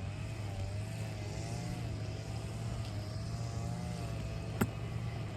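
A steady low motor hum with a slowly wavering whine above it, and one sharp click about four and a half seconds in.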